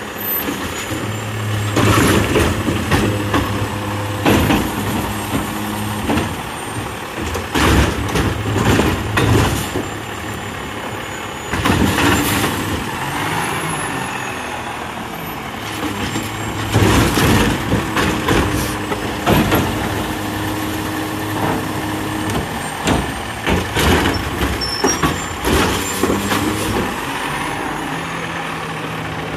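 Automated side-loader garbage truck at work: the diesel engine runs and revs up and down as it drives the lifting arm. Repeated clanks and bangs come from the arm and body, with hisses of the air brakes between them.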